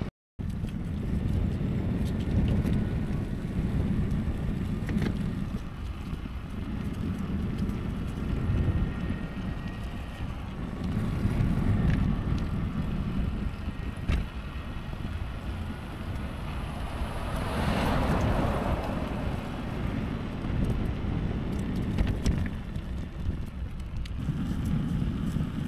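Wind buffeting a microphone mounted low on a moving pedal trike, over the rumble of tyres rolling on asphalt, with scattered small clicks and rattles from the front suspension and steering. A louder hiss swells about two-thirds of the way through.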